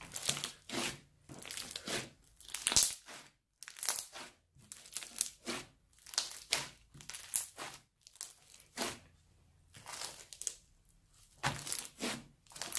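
Crunchy slime studded with foam beads being squeezed and kneaded by hand, giving a crackling crunch with each squeeze. The crunches come in a rhythmic run of short bursts, about one or two a second.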